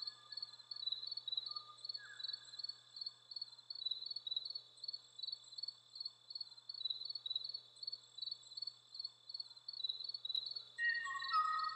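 Cricket chirping in a steady rhythm, about three chirps a second, with a soft falling tone about two seconds in and a few held tones entering near the end.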